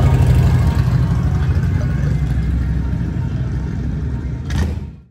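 Motorcycle engine rumbling at low speed as a touring motorcycle rolls past, slowly fading. A short knock sounds near the end, then the sound cuts off suddenly.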